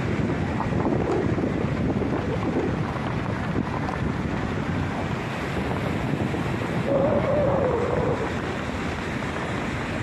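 Steady rush of a fast mountain river's white-water rapids, with wind buffeting the microphone. A short wavering tone rises over it about seven seconds in.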